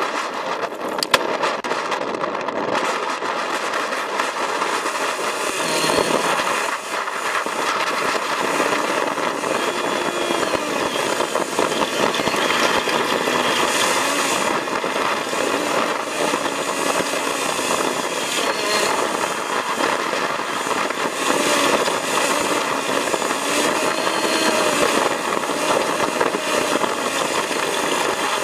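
Off-road vehicle driving over a rough stony track, heard from inside the cabin: steady engine and road noise with constant knocking and rattling from the bumpy ride and a sharp knock about a second in. The recording is sped up.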